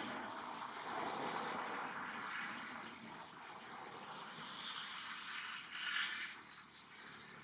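Steady outdoor background hiss with a few short, high, falling bird chirps, and a sharp click about six seconds in.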